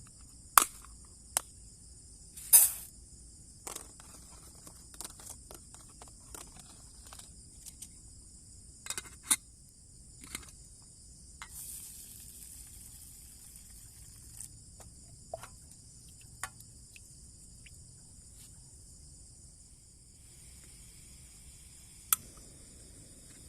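Steady high-pitched chorus of crickets and other night insects, with scattered sharp clicks and knocks throughout, the loudest two near the start and one near the end.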